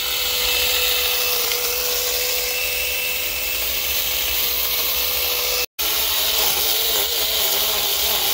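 Small battery-powered mini chainsaw running with a steady high motor whine. After a momentary break about two-thirds through, its pitch wavers up and down as it cuts into dry, dead brush.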